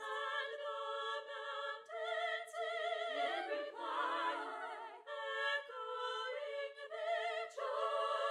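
Background music: singing in an operatic, choral style, with held notes that waver in vibrato and change pitch every second or so, thin and without bass.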